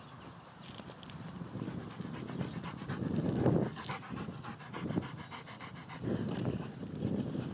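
A large dog panting in a quick, even rhythm close to the microphone, loudest about halfway through.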